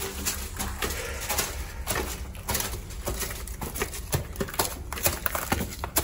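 Footsteps crunching over loose ground, a rough run of irregular steps, with a low rumble underneath.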